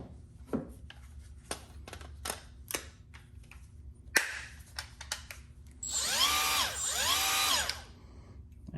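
Small clicks and knocks of handling, then a Milwaukee M12 cordless power tool's motor run twice in short bursts near the end, each time spinning up, holding briefly and winding down.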